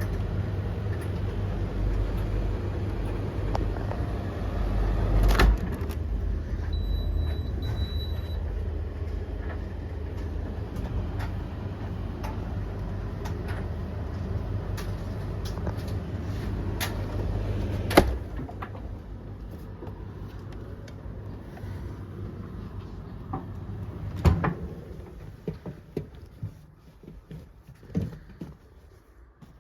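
Tumble dryers running: a steady low rumble of turning drums, with scattered clicks and knocks from the tumbling load. A sharp knock about 18 seconds in, after which it is quieter, and it fades further near the end.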